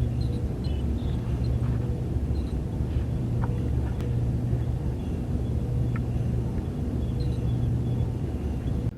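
Star Trek starship interior ambience sound effect: a steady low hum with a few faint, short electronic chirps scattered over it, cutting off suddenly near the end.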